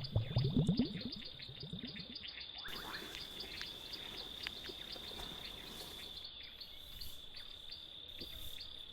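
Steady high-pitched insect chirping in a fast, even pulse, with loud low sliding sounds during the first second.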